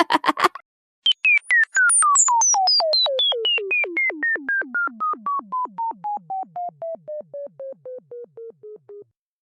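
Cartoon-style synthesizer falling effect: a long run of short electronic beeps, about four a second, stepping steadily down in pitch from high to low and fading as they go, each note dipping at its end.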